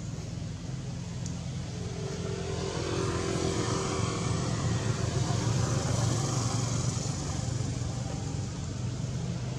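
A motor vehicle's engine running, a steady low hum that swells about three seconds in and eases off again toward the end, as of a vehicle passing by.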